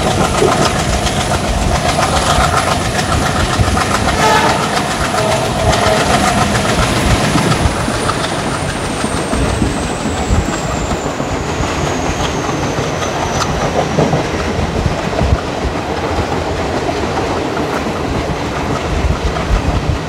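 ICF coach wheels running and clattering over rail joints at speed. A train horn sounds for about the first six seconds. A faint high whine falls slowly in pitch in the middle.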